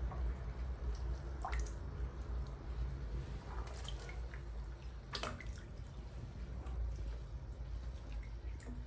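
Bath water in a plastic tub dripping and lapping as a baby monkey swims through it, over a low steady rush of water. A few sharp plinking drips stand out, the clearest about five seconds in.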